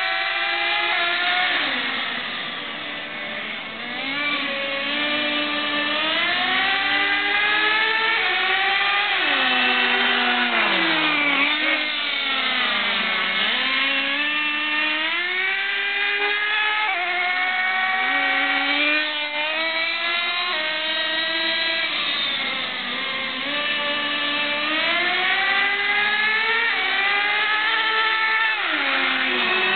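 Small nitro glow engines of radio-controlled cars revving up and down again and again as the cars run and make passes, their pitch rising and falling, with a sharp drop in pitch as a car goes by near the middle.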